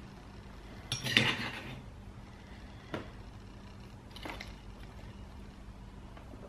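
A spoon clinking and knocking against kitchen containers a few times, about a second in, near three seconds and again after four, over a faint steady hum.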